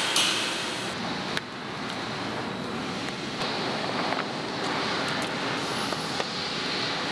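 A short metallic clatter as a wire drying rack is handled, then steady factory background noise with a few faint handling clicks.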